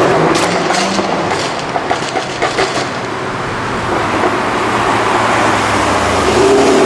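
Jaguar F-Type R's supercharged V8 exhaust crackling and popping, a quick run of sharp cracks over the first three seconds, then the engine running on steadily.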